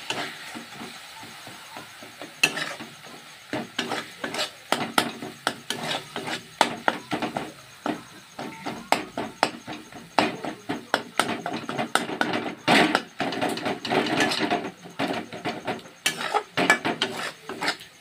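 Spatula scraping and knocking against a metal pot, stirring thick masala paste as it fries. Quick, irregular clacks throughout, busiest in the second half.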